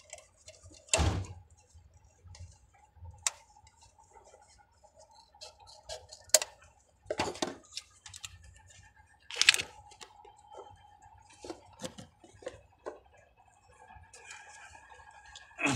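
Scissors snipping and crinkling a thin piece of aluminium drink can, a string of irregular sharp clicks and crackles, as a protective sleeve is cut for fitting a steering gear box oil seal. A faint steady tone hums underneath.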